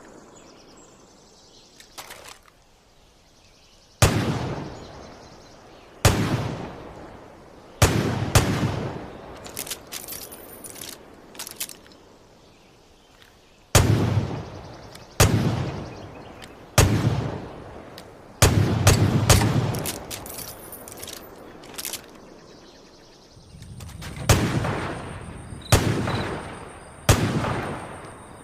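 Smith & Wesson Model 29 .44 Magnum revolver firing a string of single shots, starting about four seconds in and coming every one to four seconds. Each loud crack trails off in an echo lasting about a second.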